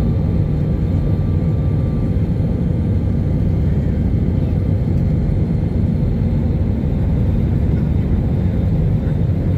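Cabin noise of an Airbus A319-111 climbing out after takeoff: a steady low rumble from its CFM56-5B turbofans at climb power and the airflow over the fuselage, heard from a seat over the wing.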